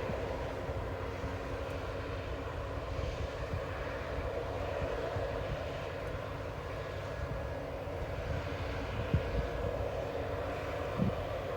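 Steady drone of diesel farm machinery running while a combine unloads grain into a tractor's trailer, with two dull knocks near the end.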